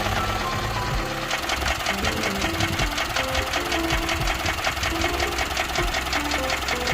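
Honda K20A4 four-cylinder engine running with a fast, steady metallic rattle that comes in about a second in. The owner has not found the cause of the rattle and has ruled out cam lobe galling and timing.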